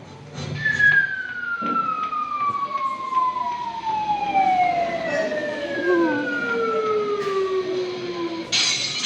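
A long whistle-like tone gliding slowly and steadily down in pitch for about eight seconds, like a cartoon falling sound effect, with fainter higher tones falling alongside it. Near the end it gives way to a sudden crash-like clatter.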